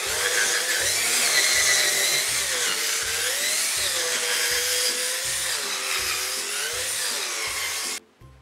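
Cordless drill/driver boring a hole into a wooden block, the motor whine wavering in pitch as the bit loads and frees, then stopping abruptly near the end.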